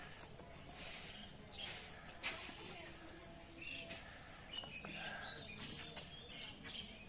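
Small birds chirping now and then over a steady outdoor background hum, with a few sharp clicks.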